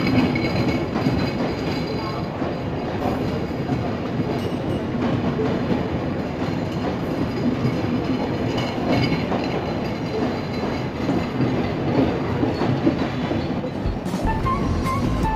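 Bangladesh Railway intercity passenger coaches rolling past, a steady noise of wheels on rail with irregular clatter.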